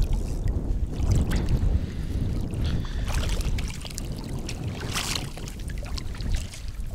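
Wind rumbling on the microphone, with a few short splashes of water.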